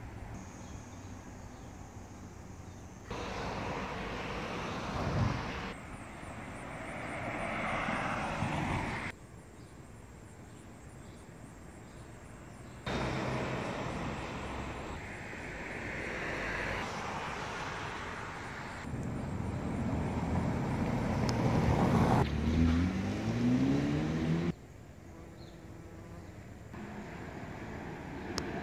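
Street ambience of passing road traffic, broken into several stretches that start and stop abruptly. Near the end a vehicle engine rises in pitch.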